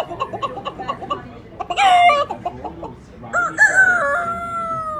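A man imitating a chicken with his voice: a run of rapid clucks, a short loud squawk, then a long drawn-out rooster crow that drops in pitch at the end.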